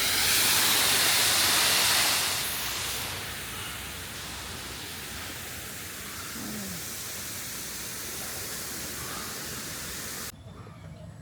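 Steady rushing hiss, louder for the first two seconds, then quieter and even, cutting off abruptly about ten seconds in.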